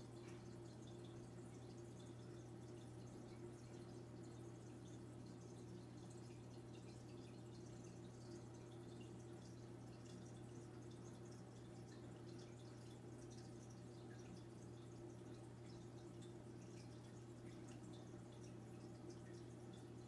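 Aquarium filter running: a faint steady low hum with water trickling and dripping.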